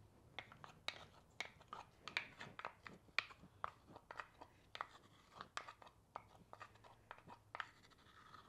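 A wooden spoon scraping thick yogurt out of a small clay bowl: faint, irregular soft clicks and scrapes, several a second, with soft squishy plops.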